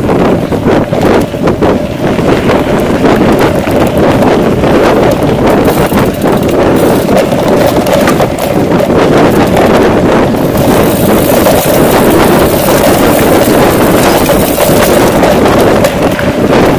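Wind rushing over the microphone of a mountain bike's camera as the bike rides fast along dirt singletrack, with tyre rumble and frequent knocks and rattles from the bike over rough ground. The rushing turns brighter and hissier about ten seconds in.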